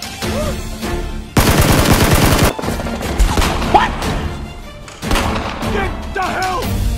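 A rapid burst of automatic gunfire lasting about a second, starting about a second and a half in, the loudest thing heard; scattered clicks and chirping effects come before and after it.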